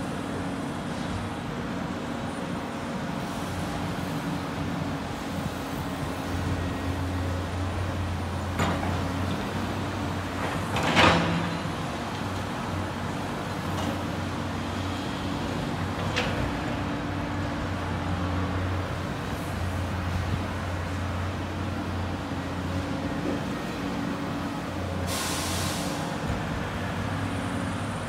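Diesel engines of a Cat and a Volvo tracked excavator working, a steady low drone, with a few knocks and one louder bang about eleven seconds in. A short hiss comes a couple of seconds before the end.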